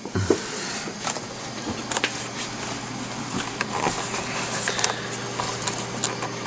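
Small stepper motors of a homemade CD-ROM-drive CNC router running, a steady low hum with a fainter higher whine, with scattered sharp clicks.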